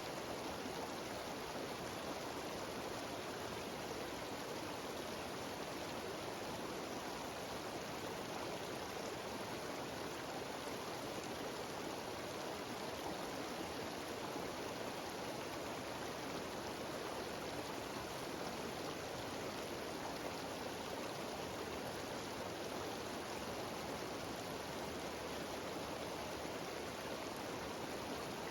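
Mountain waterfall cascading over rocks: a steady, even rush of falling water that does not change.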